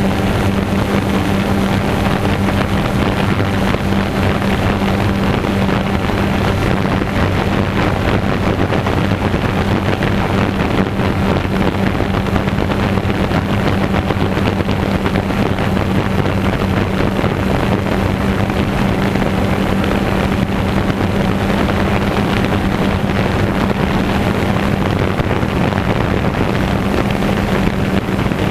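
DJI Phantom 2 quadcopter's four electric motors and propellers buzzing steadily as it hovers, heard from on board: a constant hum with a rush of air noise over it.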